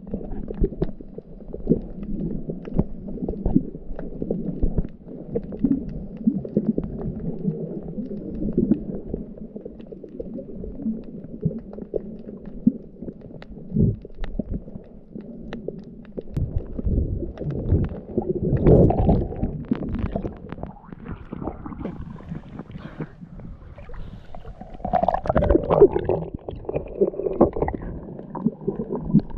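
Muffled rumbling and sloshing of water around a submerged camera while snorkelling, with small knocks throughout and two louder bursts of gurgling, one about two-thirds of the way in and another near the end.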